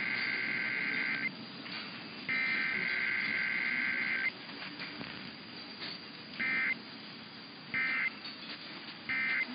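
Emergency Alert System digital data bursts: the buzzy two-tone warble of the SAME signal, in two long header bursts about a second apart, then after a pause three short End of Message bursts about 1.3 s apart. No attention tone or voice message sits between header and End of Message, as in a Required Weekly Test. Faint steady background noise fills the gaps between bursts.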